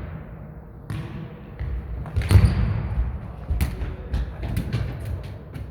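Jokgu ball being kicked and bouncing on the court: a few separate thuds, the loudest about two seconds in, followed by a run of lighter taps and clicks.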